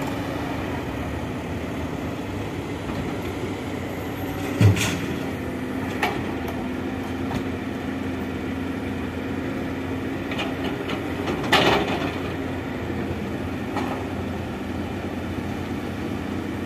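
Excavator unloading coal from a dump truck: heavy diesel machinery runs steadily, with four knocks from the bucket and coal, the loudest about four and a half seconds in and about eleven and a half seconds in.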